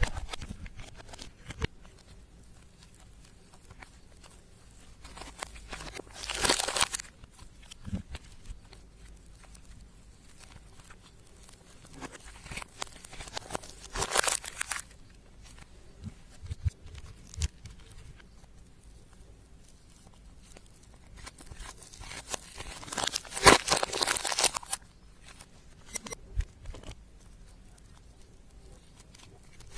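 Slime being squished and stretched by hand, making sticky crackling and tearing sounds. It comes in three longer bursts, about a fifth of the way in, near the middle and about three quarters through, with small clicks and pops between.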